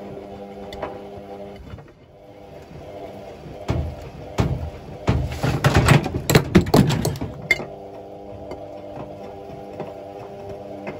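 Hotpoint Ultima Extra WMA64 washing machine running a wash. A steady hum cuts out about two seconds in. A run of loud clunks and knocks follows, and the hum returns near the end.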